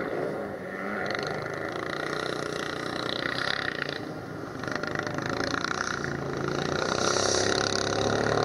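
Engines running and revving, their pitch rising and falling, a little louder near the end.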